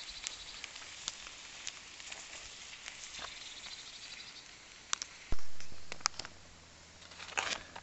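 Steady hiss of food sizzling on a fire-heated cooking stone, with scattered crackles and pops from the wood fire. A single sharp knock sounds a little after five seconds in.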